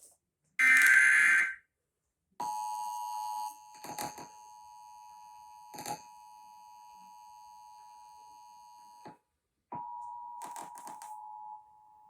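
Emergency Alert System broadcast test: a final burst of the screeching digital SAME header data, about a second long, then the EAS two-tone attention signal, a steady dual tone. The tone drops in level a second after it starts, cuts out briefly near nine seconds and comes back.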